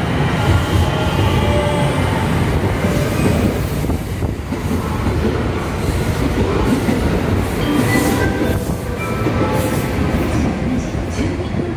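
JR West 225 and 223 series electric train cars rolling along a station platform: a continuous rumble of wheels on rail, with rail-joint clicks and brief wheel squeals.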